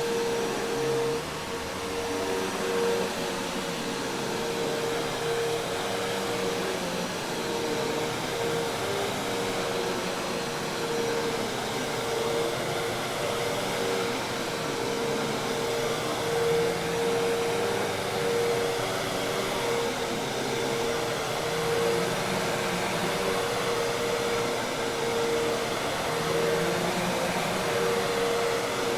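Hoover Task Vac commercial vacuum cleaner running steadily: an even rushing of air with a constant mid-pitched motor whine over it.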